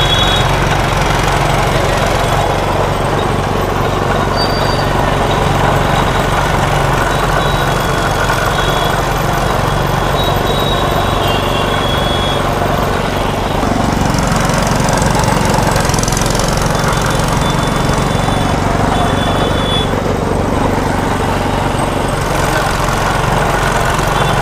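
Powered sugarcane juice crusher running steadily, with a steady low hum, as folded sugarcane stalks are passed through its rollers again and again to press out all the juice.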